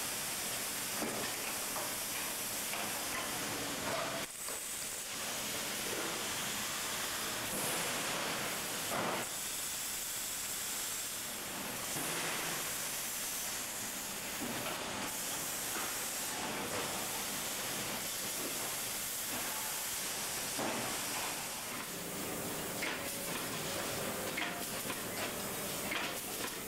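Steady hissing din of an exhaust-silencer factory floor, with a few faint clanks and knocks scattered through it.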